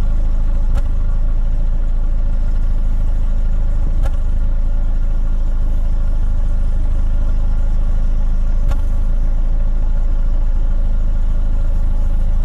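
A 2009 Chevy Cobalt's four-cylinder engine idling steadily, with three brief knocks a few seconds apart. It has a slight misfire, which its scan tool pins on cylinder 3 (code P0303).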